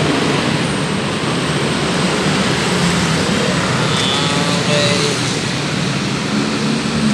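Steady rumble and hiss of road traffic, with no single event standing out.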